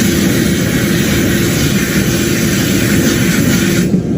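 Steady hiss from a CNC lathe cell over its low running hum, cutting off suddenly near the end.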